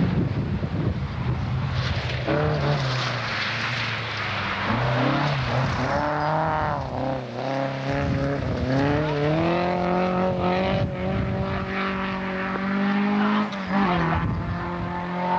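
Rally car engine revving hard, its pitch climbing and dropping several times as the driver shifts gears and lifts off.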